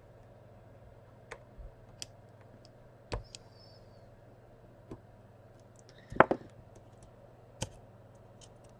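Scattered light clicks and taps from a phone being handled and its screen tapped, with one louder knock about six seconds in, over a steady low hum.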